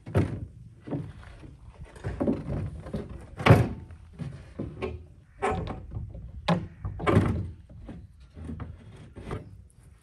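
Wooden cart box knocking and thudding against the cart's metal frame as it is tilted up, set down and lifted again: a string of irregular knocks, the loudest about three and a half seconds in.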